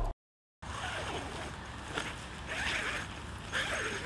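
The tail of the intro music cuts off at the very start. After that, a large tent's fabric is handled and spread out on grass, rustling and crinkling in about three swells over a faint steady background noise.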